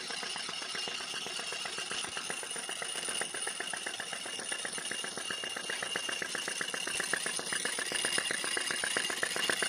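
Homemade flame licker (vacuum) engine running, its mechanism clicking in a rapid, even rhythm.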